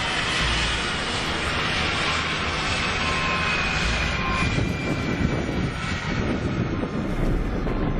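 Airplane engines running: a steady roar with a high whine that drifts slightly lower in pitch.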